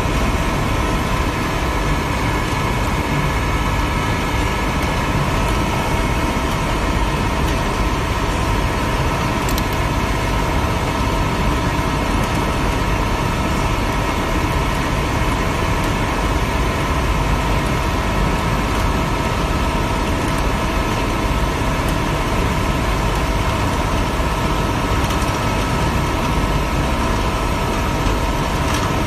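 Green sand mixer running steadily as it churns foundry sand: a constant low rumble with a steady whine on top, unchanging throughout.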